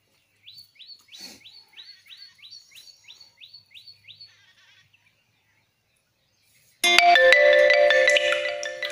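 A rapid series of short rising chirps, about three a second, like a bird calling, for the first four seconds. After a short silence, a loud marimba-like melody of ringing tones starts abruptly about seven seconds in and fades toward the end.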